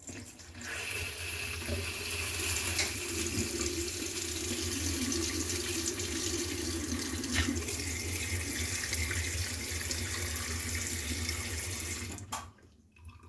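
Hot water running hard from a kitchen mixer tap with a steady low hum underneath. The tap has a newly fitted valve cartridge. The water comes on about half a second in and is shut off abruptly near the end.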